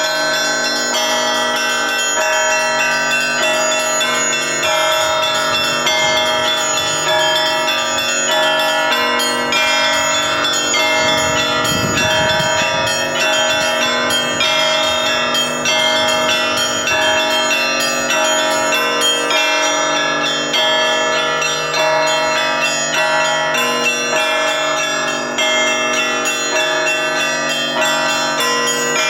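Russian Orthodox church bells rung as a continuous peal: many bells of different pitches struck in quick, overlapping rhythm, ringing on without a pause.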